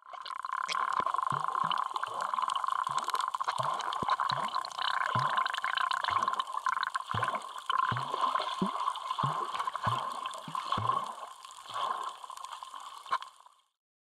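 Water bubbling and gurgling close to a microphone held underwater, with a quick bubbling pop about twice a second. It cuts off abruptly near the end.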